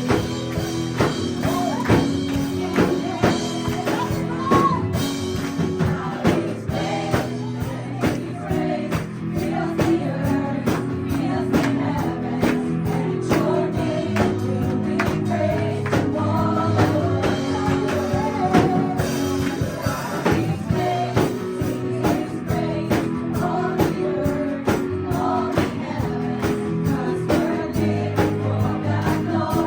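Live praise-and-worship band music with singing voices over a steady drum beat.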